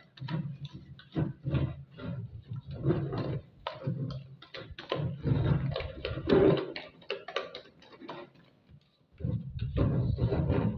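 A hand mixing a thin flour, cornstarch and water batter in a bowl: an irregular run of wet squishing and sloshing strokes, with a short lull about eight seconds in.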